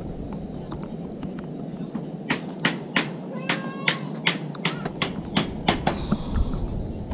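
A run of about eleven sharp, evenly spaced knocks, about three a second, starting about two seconds in and stopping about six seconds in, over a steady low background noise.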